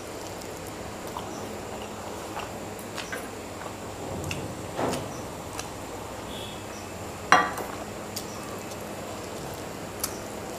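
Close-miked hand-eating sounds: rice and curry being mixed and chewed, with many small wet clicks. About seven seconds in a sharp metallic clink, the loudest sound, as the steel gravy bowl is set back down.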